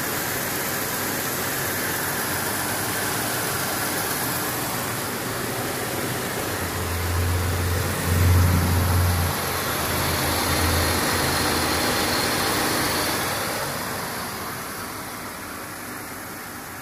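A GM 3800 Series II 3.8-litre pushrod V6 idling quietly under an open hood. A deeper hum swells for a few seconds midway, then settles back to a steady idle.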